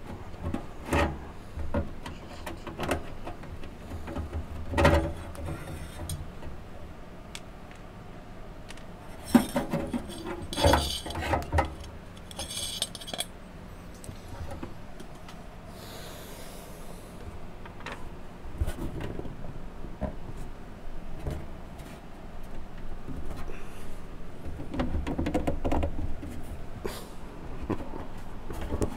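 Screws being taken out of a steel instrument cabinet and a small metal plate lifted off: scattered clicks, scrapes and knocks, with a cluster of jingling metal clinks around the middle. Duller bumps follow as the cabinet is handled on the bench near the end.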